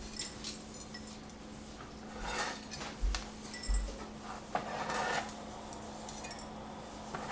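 Cleaver knocking and pressing on peppercorns on a plastic cutting board, with two dull thumps a little after three seconds, then scraping and small clinks of kitchen utensils.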